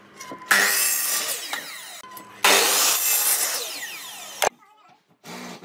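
Benchtop miter saw making two cuts through a wooden board: loud bursts of sawing about half a second in and again about two and a half seconds in, with falling whines as the blade runs down. The second run ends suddenly with a sharp click.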